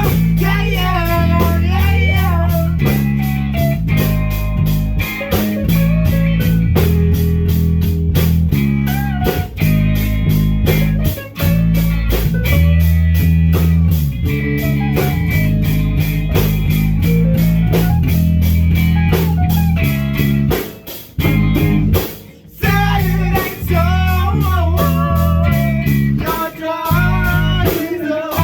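A rock band playing a song on electric guitar, bass and drums, with a melody line that bends in pitch over steady bass notes and a regular beat. The band drops out briefly about two-thirds of the way through, then comes back in.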